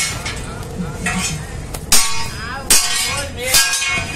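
Three sharp clattering knocks about a second apart: a dirty, clogged plastic-framed cabin air filter from a Maruti Suzuki Swift is struck against a concrete floor to shake the dust and debris out of it.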